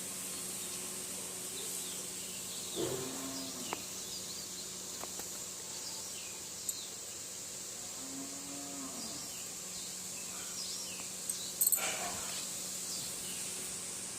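Outdoor nature ambience: small birds chirping on and off over a steady high insect-like hum. Twice there is a short low call, and about twelve seconds in there is a brief louder noise.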